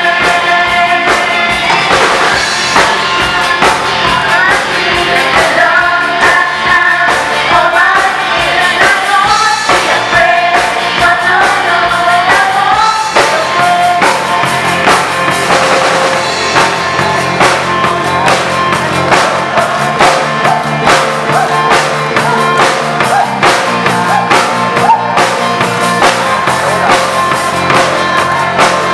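Live band playing a song on electric bass, acoustic guitar and drum kit, with a steady drum beat. A voice sings the melody through roughly the first half; after that the held notes are steadier.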